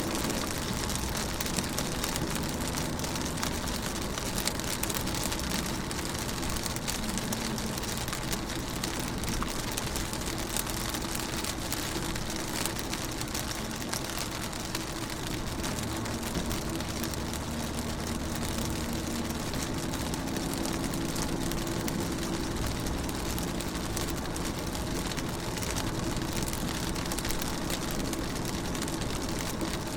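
Steady rain with many small drops tapping on a window pane, over a low, steady hum.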